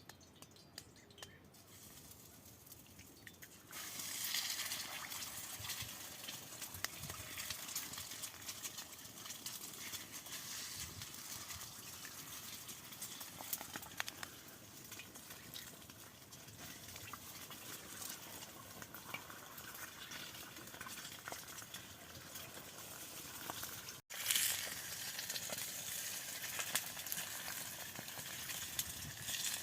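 Egg frying over an open fire: a steady sizzle with small crackles. It starts abruptly about four seconds in, and cuts out for a moment near the end before carrying on.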